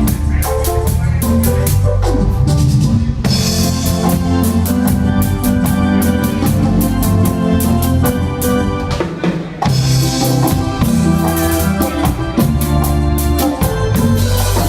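Live band playing an instrumental cumbia groove during a sound check: drum kit with regular bass drum and snare hits over bass and other pitched instruments.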